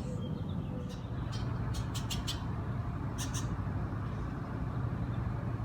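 Short, high bird chirps over a steady low outdoor rumble. There is a quick run of about five chirps between one and two and a half seconds in, then two more about a second later.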